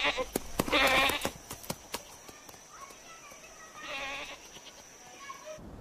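Livestock bleating: a loud, wavering bleat about a second in and a quieter one near four seconds, with scattered light clicks between them.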